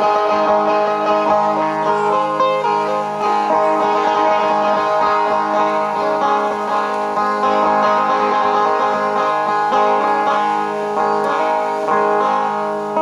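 Music played on a plucked Dayak lute (sape): a repeating picked melody over a steady low drone, accompanying the hornbill dance.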